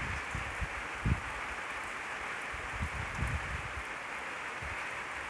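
Steady rain falling on a wet, puddled street. A few brief low thumps occur, about a second in and again around three seconds in.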